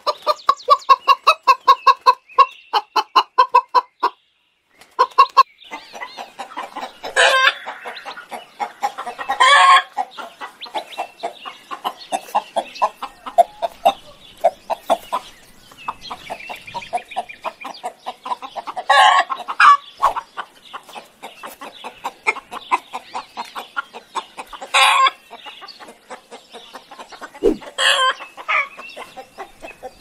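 A flock of hens clucking continuously, opening with a fast, even run of loud clucks that breaks off about four seconds in. The clucking then carries on, with about five louder, sharper calls standing out over it.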